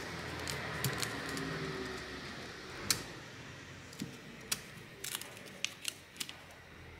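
Metal tweezers clicking and tape crinkling as adhesive tape is picked at and peeled off a GPS unit's circuit board and battery. The sound is a scatter of sharp ticks, the loudest about three seconds in and several in quick succession later on.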